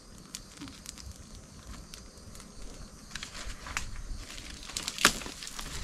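Scattered faint crackles and rustling from a torch of damp coconut leaves being lit, not yet catching properly, with one louder snap about five seconds in.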